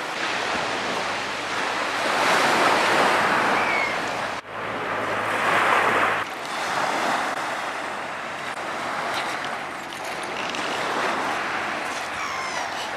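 Seaside wind and surf noise: a steady rushing hiss with wind buffeting the microphone, changing abruptly about four and a half and six seconds in.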